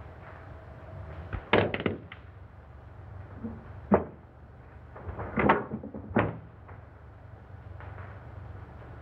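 Knocks and thuds of a struggle and a body falling to the floor, over the hiss of an old film soundtrack: a cluster of knocks about a second and a half in, a single sharp crack about four seconds in, then heavy thumps around five and six seconds in.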